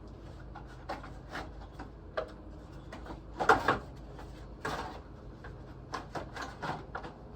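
Irregular knocks, clicks and clatter of tools and parts being handled during a cooling fan motor replacement. The loudest knocks come in a quick cluster about halfway through, over a steady low hum.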